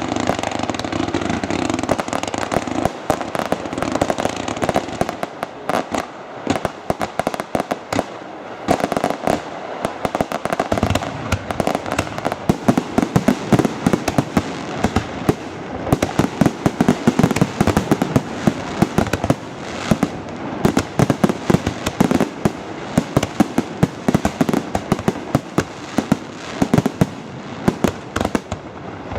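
Fireworks display: a dense, continuous barrage of bangs and crackling from bursting fireworks, growing sharper and more rapid about a third of the way in.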